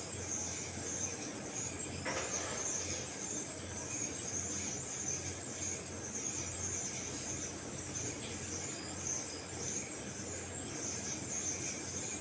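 Steady running of industrial sewing machines on a garment-factory floor: a constant high-pitched whine over a low hum, with a light click about two seconds in.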